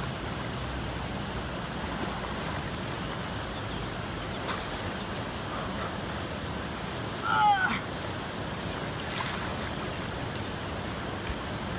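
Steady rush of river water, with splashing as a person wades through it. About seven seconds in comes a short, high-pitched cry.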